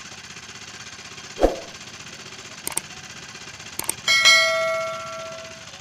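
A dull knock, a couple of light clicks, then a metal object is struck once and rings with a bell-like clang that fades over about a second and a half, over a steady low hum.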